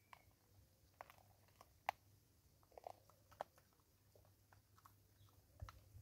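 Vervet monkey eating bird seed: faint, scattered crunchy clicks of chewing and cracking seed, the clearest about one and two seconds in and a few more around three seconds.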